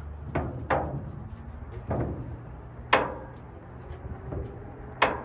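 Five sharp metal clunks with a short ring from the hood and hood latch of a 1957 Plymouth Sport Suburban as the hood is pushed down and then worked at the latch. The loudest clunks come about three seconds in and near the end.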